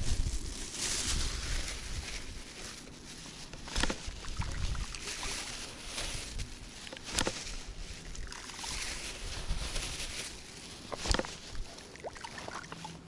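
River water sloshing and trickling over a stony riffle at the bank, swelling and easing, with three sharp clicks spaced a few seconds apart.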